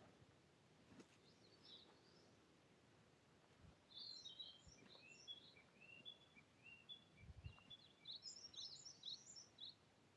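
Faint birdsong: a small bird's quick, high chirping phrases, a brief one about a second in, then two longer runs in the middle and near the end, over a quiet outdoor background.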